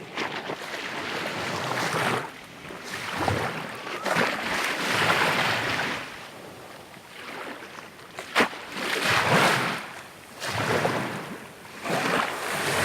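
Sea waves breaking and washing up the shore, surging and fading every two to three seconds, with one sharp knock about eight seconds in.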